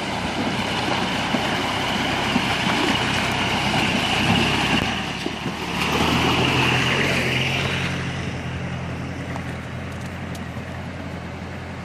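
Open-top jeep's engine running as it drives through a shallow river, with water splashing and churning around its wheels. It is loudest as it passes close about six seconds in, then fades as it drives away.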